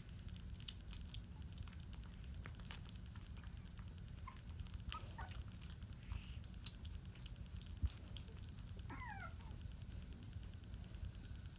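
A 20-day-old Rottweiler puppy making faint high squeaks: a couple about halfway through, then one short falling whimper late on. Light scattered clicks and a low steady rumble sit underneath.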